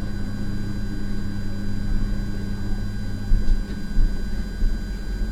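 A steady low hum with a thin high tone above it. A few soft thumps come a little past the middle.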